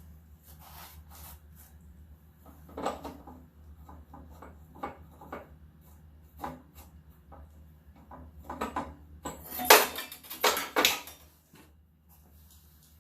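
Small metal carburetor parts, screws and hand tools clicking and clattering on a workbench as a lawn mower carburetor is put back together by hand. Scattered light clicks throughout, with a louder run of clatter about ten seconds in.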